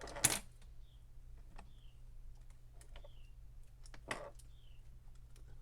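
Scattered small clicks and taps of an iPod's internal parts and tools being handled during disassembly, with one short, louder scrape just after the start.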